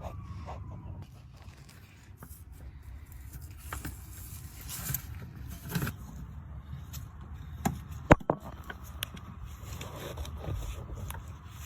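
Scattered clicks, knocks and scrapes of hand work on a car's emergency brake parts, with one sharp click about eight seconds in, over a steady low rumble.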